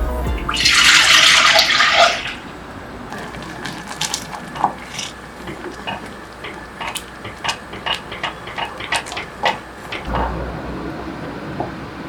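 Kitchen tap running for about a second and a half, then a series of light clicks and clinks of kitchenware being handled.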